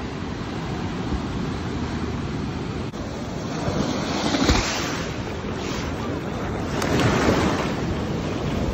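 Small surf washing up the sand at the water's edge, with wind on the microphone. The wash swells loudest about four and a half seconds in and again around seven seconds.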